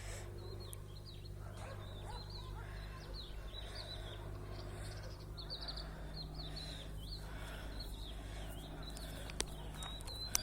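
Small birds chirping in quick, repeated short notes over a steady low hum, with a couple of sharp clicks near the end.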